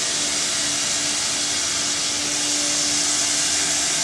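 Single-head CNC router running steadily: an even high hiss with a constant hum underneath.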